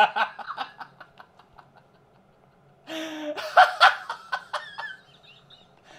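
A man laughing: a run of quick chuckles that dies away about a second and a half in, then, after a pause, a louder burst of open-mouthed laughter that trails off.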